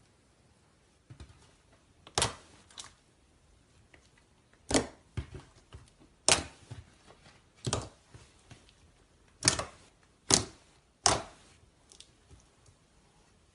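Slime being worked by hand, giving short sharp pops about every second or two, some in quick pairs.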